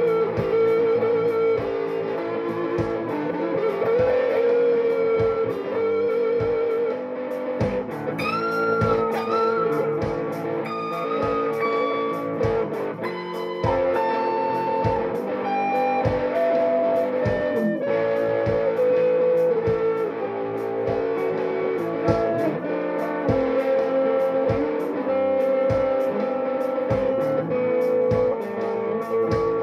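Electric guitar being played: a single-note melody of held notes that step in pitch, with string bends about eight seconds in, over a steady low note.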